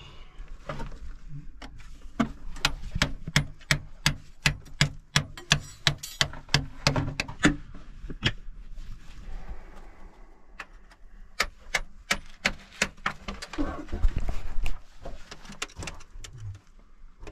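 Hand tools chipping at hard rock in a narrow mine shaft: a quick run of sharp knocks, about three a second, then scattered single strikes later. A louder low rumble of movement and scraping comes near the end.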